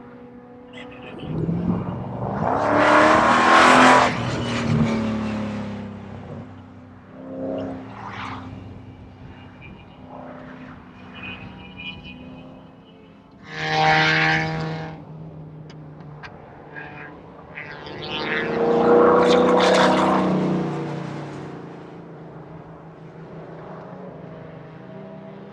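Race cars on a road course going past one after another, each engine swelling loud as it passes and fading away, its note rising and falling with the throttle. There are three loud passes, a few seconds in, about halfway and a little later, plus a fainter one in between.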